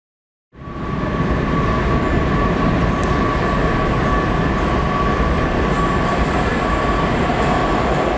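Washington Metrorail Kawasaki 7000-series train approaching through the tunnel into an underground station. A steady rumble with a steady high whine over it fades in about half a second in.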